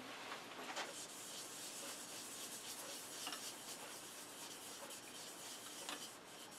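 Faint steady rubbing of a paper towel dampened with mineral spirits, wiped by hand across the end of a wooden box lid with a brass inlay ring, clearing leftover brass powder out of the wood, with a few soft ticks.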